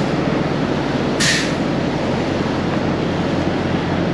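Semi-truck engine idling with a steady low hum, and a short hiss about a second in.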